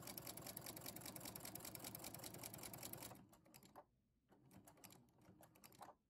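Baby Lock sewing machine stitching a seam, a fast even run of needle strokes that stops suddenly about three seconds in. After that come a few scattered light clicks as the fabric is handled.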